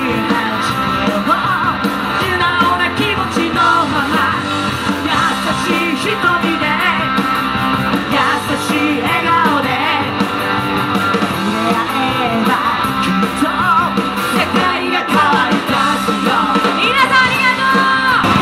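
Live rock band playing a song: singing over electric and acoustic guitars and a drum kit.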